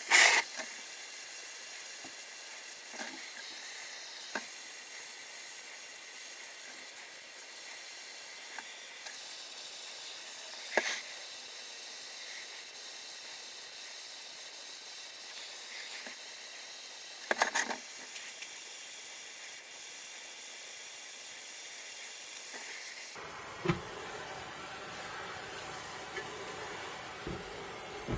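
A pen-type rust-cleaning tool working rust off the steel carrying handle of an old machine-gun drum magazine: a steady hiss, broken by a few sharp clicks. About four-fifths of the way through, the hiss turns louder and coarser.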